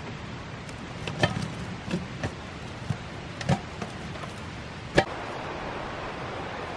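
A run of sharp knocks and clinks, some with a short metallic ring, as a wooden stick is pressed and tied down across a foil-sealed metal pot lid. The loudest knock comes about five seconds in, after which a steady rushing like wind takes over.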